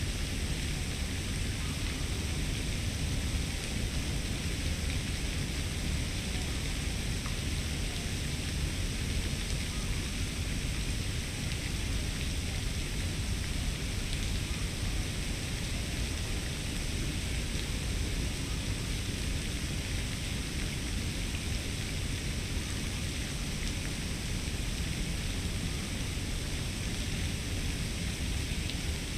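Steady outdoor ambience: an even hiss over a low rumble, with faint steady high-pitched tones running through it.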